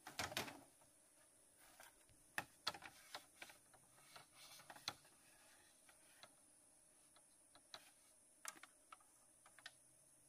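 Faint, irregular light clicks and taps, bunched in the first half and sparser later, with a short rustle at the very start.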